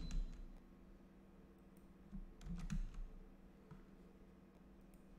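A few soft computer keyboard and mouse clicks, clustered about two to three seconds in, over a faint steady low hum.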